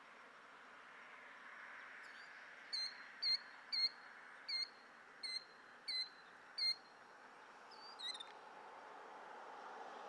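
A killdeer calling: a series of seven short, high, clear notes about two-thirds of a second apart, starting about three seconds in, then one softer call about eight seconds in.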